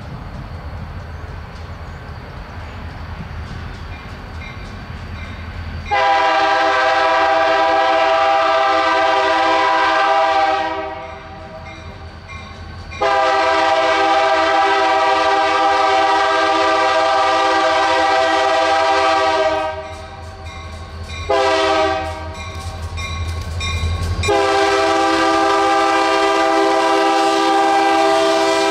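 Diesel locomotive horn sounding a chord of several tones in the grade-crossing pattern: two long blasts, one short, then a final long blast that is still going at the end. Under it, and alone for the first six seconds, is the low rumble of the passing train.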